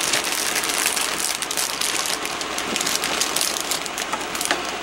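Plastic bag of pre-cut collard greens crinkling as it is tipped into a pot, with the leaves rustling as they tumble onto the heap; a steady run of dense crackling.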